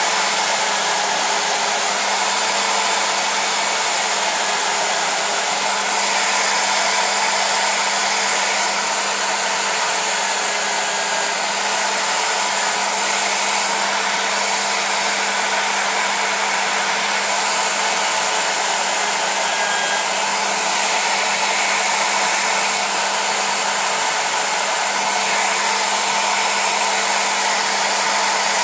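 Electric drill running continuously with a polishing wheel fitted, buffing a steel bolt held against the spinning wheel. It makes a steady, even motor hum at a constant pitch over a hiss.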